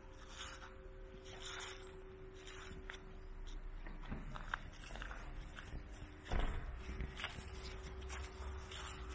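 Footsteps walking at about one step a second, over a faint steady hum, with one louder thump about six seconds in.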